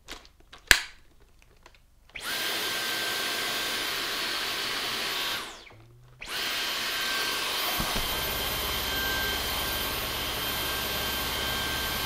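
Dyson V11 Outsize cordless stick vacuum running with its motorised cleaner head and brush bar spinning: a steady motor whine starts about two seconds in, winds down gradually about three seconds later, then starts again and keeps running, with a low rumble joining it partway through. A sharp click comes just under a second in.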